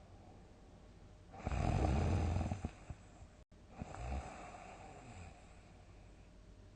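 A sleeping person snoring: one loud, deep snore starting about a second and a half in and lasting just over a second, followed by a softer, shorter snore breath.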